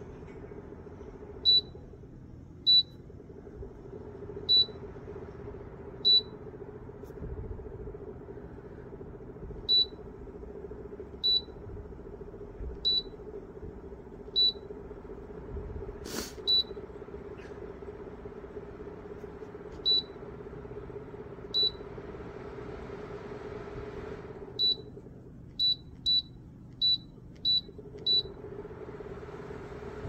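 CUUD bladeless tower fan running with a steady whoosh and hum while its control panel gives short high beeps, about seventeen of them a second or two apart and quicker near the end, as the speed, timer and mode settings are stepped through. The airflow noise drops away briefly near the start and again for a few seconds near the end, and there is one sharp click about halfway.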